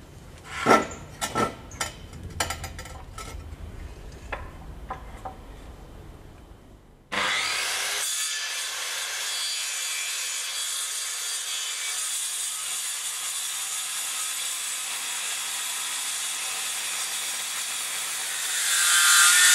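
A few knocks and handling clicks on the workpiece. About seven seconds in, a power saw starts abruptly and cuts steadily through a block of hardwood, growing louder near the end.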